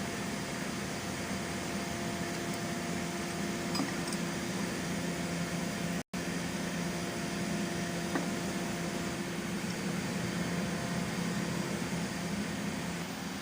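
Steady mechanical hum with a hiss, with a few faint clicks. It cuts out for an instant about six seconds in.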